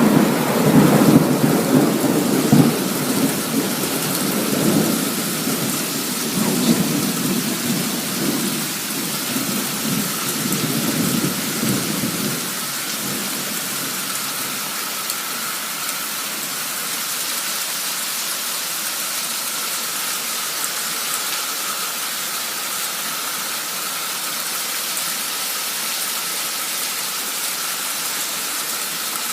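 Heavy cloudburst rain pouring down steadily, with a roll of thunder rumbling and dying away over the first twelve seconds or so.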